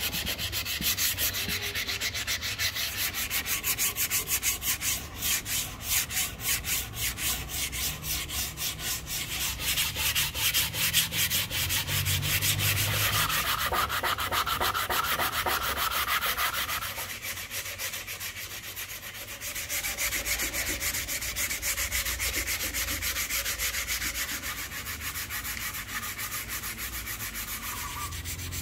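Ebony axe handle being hand-sanded with sandpaper: quick back-and-forth scratchy rubbing strokes along the wood, with a brief lull about two-thirds through.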